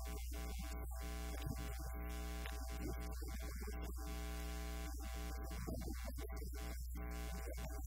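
Steady electrical mains hum with a buzzing stack of evenly spaced overtones, the fault in this event recording's audio, over a choppy hiss that keeps dropping out.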